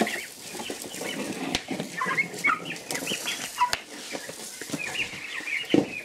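Big-6 turkey poults peeping, with short high chirping calls in clusters about two seconds in and again near the end. Under them is the hiss and patter of compound feed being poured from a plastic bucket into a wooden trough, with a few sharp clicks.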